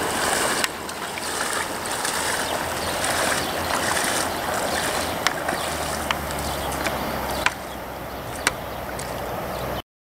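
Flowing river water and splashing around the legs of an angler wading in the shallows, with a few sharp clicks in the second half. It cuts off to silence just before the end.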